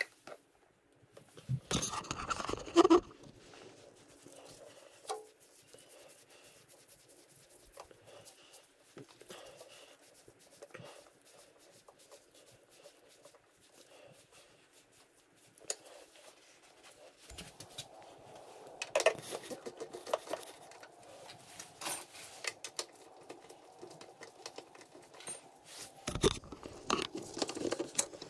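Hand-tool work on a motorcycle's plastic airbox and fairing: scattered clicks, knocks and scrapes of a screwdriver and socket tools against plastic and metal. There is a louder cluster about two seconds in, and more handling noise in the last ten seconds.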